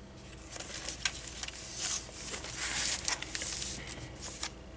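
Paper and card rustling and sliding as the pages and inserts of a handmade journal are handled and turned, with a few light taps and clicks; the rustling is loudest around the middle.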